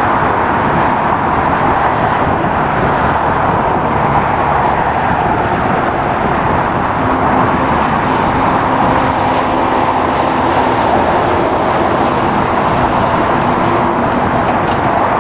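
Steady, loud vehicle noise with no single event standing out; a faint low hum joins in about seven seconds in.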